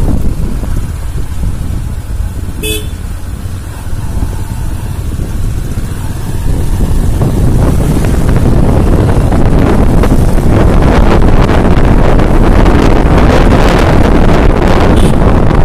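Motorcycle engine running on a dirt track, with wind buffeting the microphone that grows louder from about halfway. A short horn toot about three seconds in.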